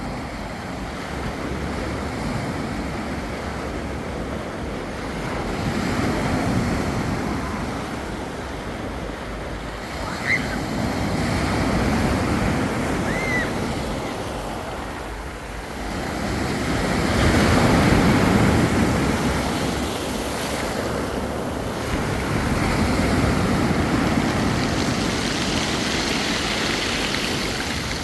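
Sea waves breaking and washing up on a beach, the surf swelling and fading every five to six seconds.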